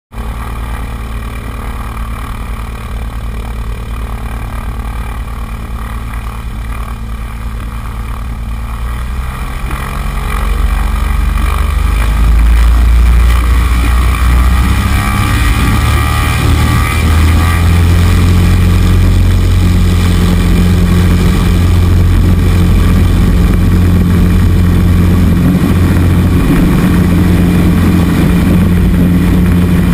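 Single-engine light aircraft's propeller engine running as the plane moves along the airstrip; the engine note swells about ten seconds in as power comes up, then holds steady and loud.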